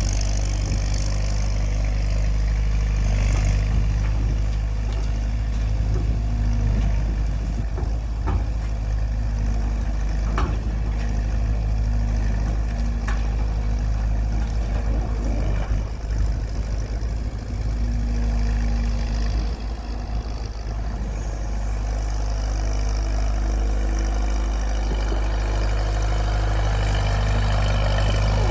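Heavy engine of cane-lifting machinery running steadily with a deep, even hum, with a couple of sharp metallic knocks about eight and ten seconds in.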